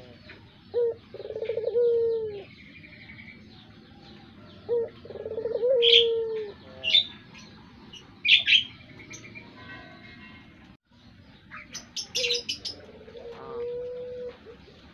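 Puter pelung, a long-cooing variety of Barbary dove, cooing three times: each call is a short note followed by a long drawn-out coo, and the last one is fainter. Sharp, higher chirps from other small birds come between the coos.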